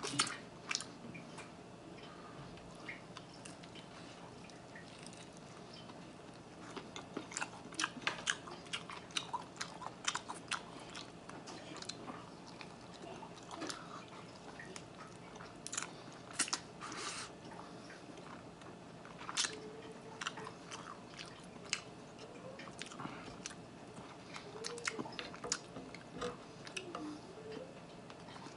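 Close-miked chewing and biting of a chicken wing, gnawing the meat off the bone: irregular crunches and mouth clicks, sparse at first and coming thick and fast from a few seconds in.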